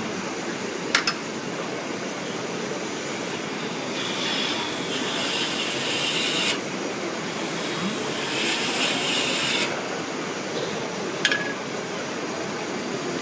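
Lathe running steadily, with a tool scraping and rasping against the spinning workpiece in two spells of about two and a half seconds each, starting about four and about seven seconds in. Two sharp clicks, one about a second in and one near the end.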